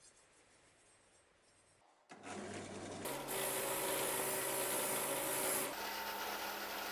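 Faint wiping at first, then about two seconds in a benchtop drill press starts running a wire wheel brush against a steel drawknife blade: a steady motor hum under the dense scratchy hiss of the wire bristles scrubbing off rust spots.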